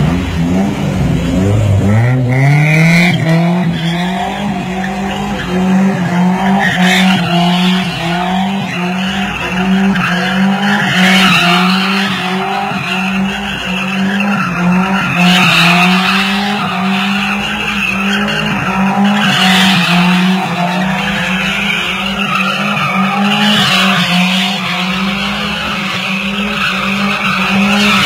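An old car's engine revs up over the first couple of seconds and is then held at high revs while its rear tyres squeal and skid continuously as it drifts in circles.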